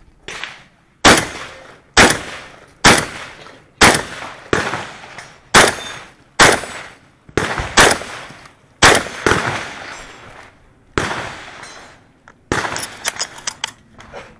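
Shotgun fired about ten times at roughly one shot a second, each blast trailing off in echo, with a longer pause before the last one. Near the end come several quick, quieter sharp clicks and knocks.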